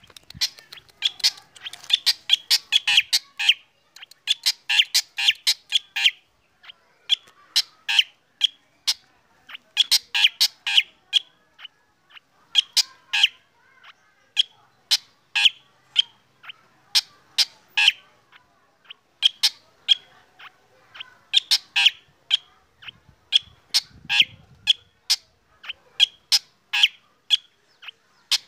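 Black drongo singing: runs of short, sharp chirping notes in quick succession, broken by brief pauses every second or two.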